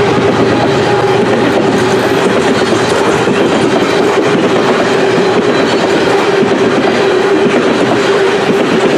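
Coal hopper cars of a freight train rolling past close by, a steady rumble and clatter of steel wheels over the rail joints, with a steady ringing tone from the wheels on the rail.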